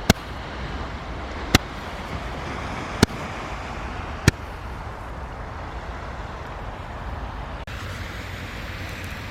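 Consumer firework from a selection box firing shots: four sharp bangs about one and a half seconds apart, then only a steady background hiss.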